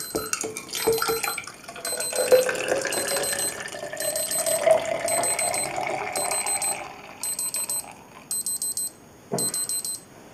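A digital timer's alarm beeps in bursts of rapid high beeps, about one burst a second: the developing-time clock going off. Meanwhile developer pours from the film tank into a glass measuring cylinder, its tone rising in pitch as the cylinder fills, until the pour ends near the eight-second mark.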